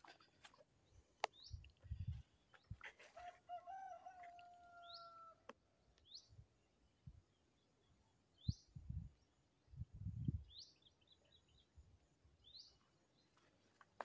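Faint birdsong: a short rising chirp repeated every second or two, and a quick run of ticking notes about eleven seconds in. About three seconds in, a rooster crows once for about two seconds. Low thumps of footsteps on a dirt path come and go.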